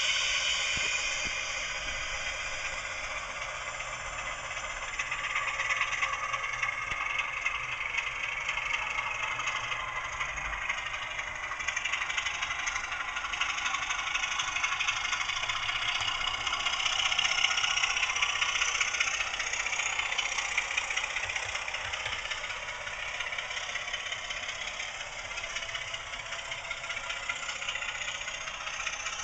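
Recorded Class 26 diesel engine sound (Sulzer six-cylinder) played through the small speaker of a model locomotive's DCC sound decoder as the model runs under power. The engine note grows louder from about five seconds in, peaks past the middle, then eases back.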